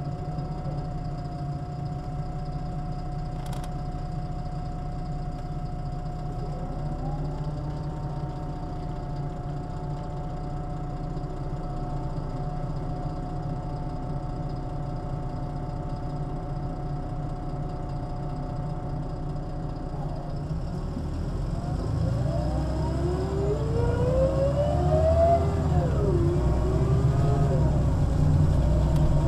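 MAN Lion's City NL 283 city bus, heard from inside: the diesel engine idles steadily with a level hum for about twenty seconds. Then the bus pulls away, louder, with the engine and ZF automatic gearbox whine rising in pitch, falling back at an upshift and climbing again near the end.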